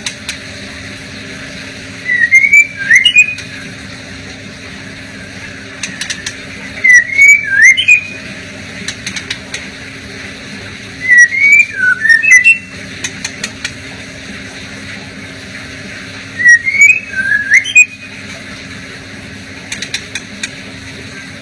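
Male white-rumped shama singing: four short phrases of rising and falling whistled notes, a few seconds apart, with faint short ticks between them. A steady low hum runs underneath.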